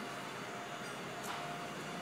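Faint steady background noise with a thin hum and a light click about a second in. No engine is clearly running yet.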